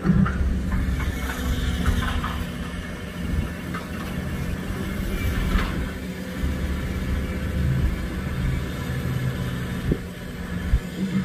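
Tracked hydraulic excavator's diesel engine running, a steady low drone, with a few knocks, the sharpest one near the end.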